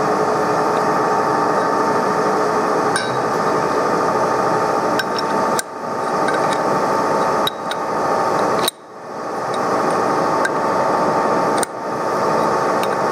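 TOS SN63B metal lathe turning a rusty wheel hub with a DCMT insert: a steady cutting noise with a constant hum underneath. About five sharp metallic clinks are spread through it.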